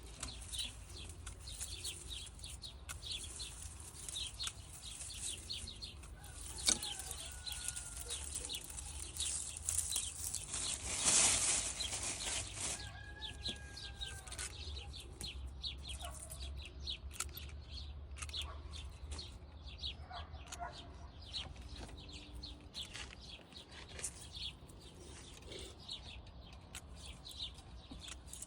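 Rustling and snapping of mint foliage being harvested: a dense run of small crackles, with a louder rush of rustling near the middle. A few faint short bird calls come through in the background.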